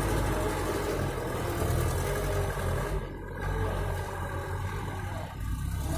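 Diesel engine of a loaded Mitsubishi dump truck running as it pulls away over dirt: a steady low drone that dips briefly about halfway through and again near the end.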